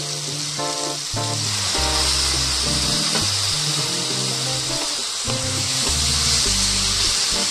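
Chopped onions and tomatoes with spice powders sizzling in hot oil in a metal kadai, the sizzle growing stronger a few seconds in; a spatula stirs the masala near the end.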